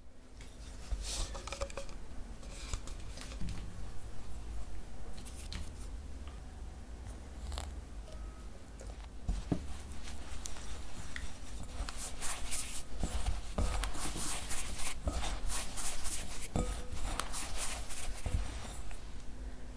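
Hands rubbing and squeezing damp rice flour in a glass bowl, a gritty scratching and crunching that grows busier in the second half. This is the step of rubbing milk into the flour to moisten it for steamed rice cake.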